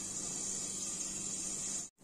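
Steady high-pitched hiss over a faint low hum, with no distinct events; it cuts off abruptly just before the end.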